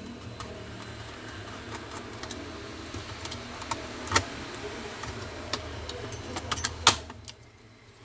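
Small clicks and taps of hands handling an opened laptop's parts, over a steady low hum. The sharpest click comes near the end, and the hum drops away just after it.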